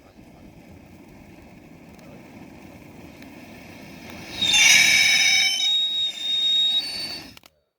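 Small firework fountain burning with a low rush, then a loud, high whistling squeal of several steady tones starting about four seconds in and lasting about three seconds; the sound cuts off abruptly near the end.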